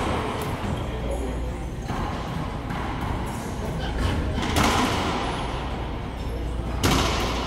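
Racquetball rally: the ball cracks off racquets and the court walls several times, each hit echoing in the enclosed court, the loudest crack near the end.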